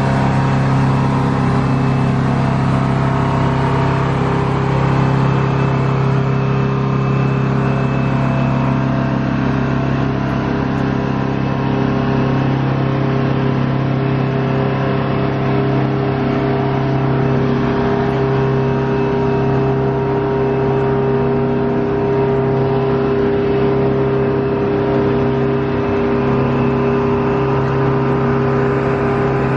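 Engine-driven aircraft ground power cart running steadily, a constant droning hum with a fixed pitch.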